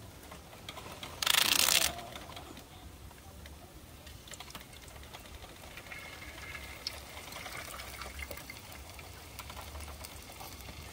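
A brief loud hiss about a second in, then faint trickling, crackling and ticking as cooking oil is poured into a steel wok on a portable gas stove.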